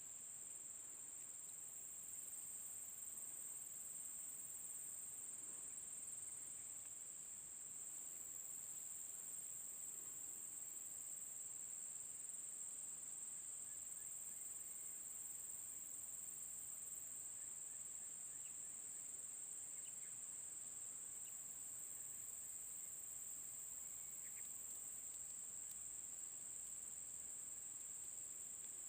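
Insects singing in a steady high drone, with a second, higher-pitched insect chorus starting and stopping every few seconds, and a few faint short chirps.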